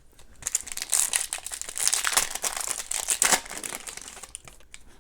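Foil wrapper of an SPx hockey card pack crinkling as it is handled and opened, dense crackle for about three seconds, then quieter.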